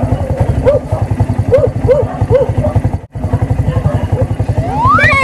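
Motorcycle tricycle engine idling with a steady rapid putter, while a husky puppy whines in short repeated cries. Near the end one whine rises sharply in pitch. The sound drops out for a moment about three seconds in.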